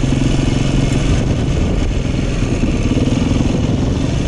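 Dirt bike engine running steadily as the bike rides along a dirt trail, heard up close from on the bike, its note rising and falling a little with the throttle, under a steady rush of noise.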